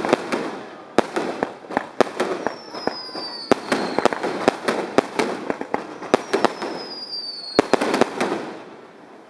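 Aerial fireworks shells bursting: sharp bangs in quick clusters every second or so, with crackling between them and a few thin falling whistles. The bangs thin out near the end.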